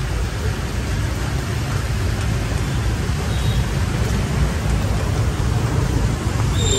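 Steady street traffic noise from motorbikes and cars on a wet road, an even hiss over a heavy low rumble.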